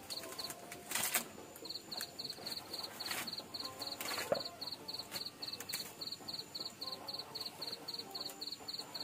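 A cricket chirping in an even, rapid train of short high pulses, about five a second, with a pause of over a second near the start. A few brief sharp crackles and rustles stand out over it, the loudest about a second in.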